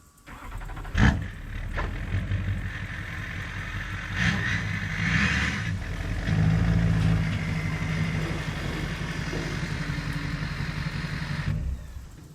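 A vehicle engine running with a steady low hum, pulling harder for a while about halfway through, with a sharp clunk about a second in; it cuts off suddenly near the end.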